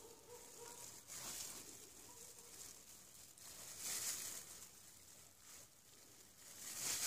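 Faint handling noise: soft rustling of thin plastic gloves as the ink sponge is pressed back into an inkjet cartridge body, in a few gentle swells over a low hiss.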